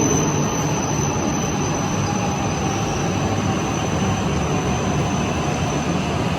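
E6 series Shinkansen train running, heard from inside the passenger car: a steady rumble of wheels and running gear with even noise. A thin high-pitched tone fades away in the first two seconds.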